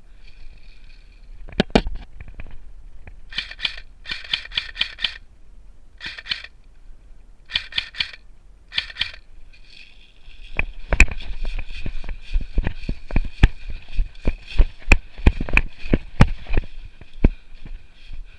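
Airsoft electric guns firing short full-auto bursts, several in a row, then from about ten seconds in more continuous fire mixed with many sharp clicks and cracks.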